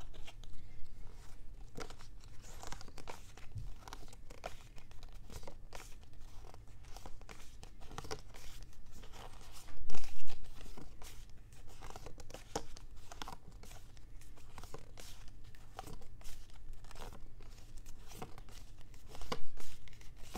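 A deck of Tarot of the Water cards being shuffled by hand, the cards sliding and flicking against each other in a fast run of short papery rustles and clicks. There are two louder bursts of card noise, about halfway through and near the end.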